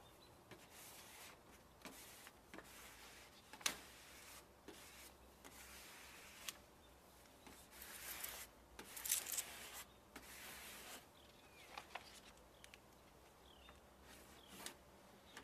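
Faint rubbing and rustling of a hand smoothing a vinyl sign onto a trailer door and of its paper backing being peeled off, with a few soft clicks and taps scattered through.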